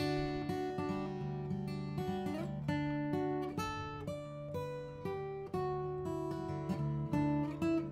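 Background music: acoustic guitar playing a quick run of plucked notes, with no singing.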